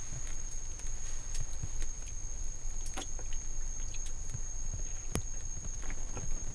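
Scattered light clicks and taps, the sharpest about three seconds in and again about five seconds in, over a steady thin high-pitched whine and a low rumble.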